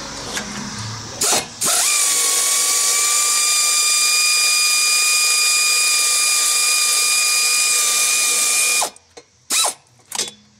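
Air ratchet backing out a 7 mm bolt: a short blip about a second in, then a steady hissing whine for about seven seconds that cuts off sharply, then two quick blips near the end.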